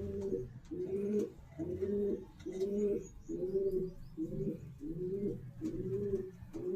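Domestic pigeon cooing: a steady run of low, rolling coos repeated at about three every two seconds.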